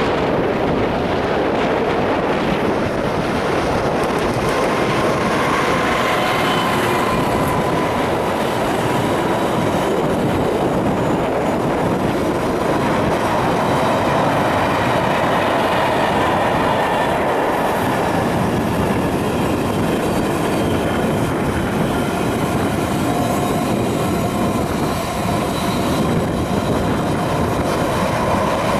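A Class 66 diesel locomotive hauling a long container freight train passes close by. Its engine is heard in the first seconds, then the container wagons roll past with a steady, loud rumble of wheels on rail and a faint high squeal from the wheels.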